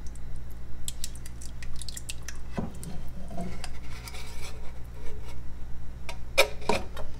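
Canned tomatoes squishing and plopping out of a tin can into a soup pot, with small clicks and a few sharper knocks of the can against the pot near the end.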